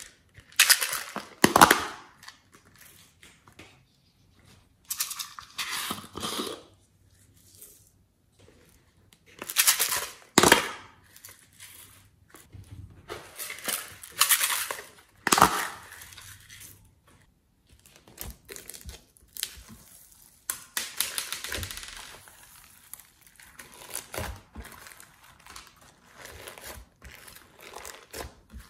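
Thin plastic cups of slime being squeezed and emptied into a glass dish: about five bursts of crinkling, crackling plastic with sharp ticks, then smaller scattered crackles.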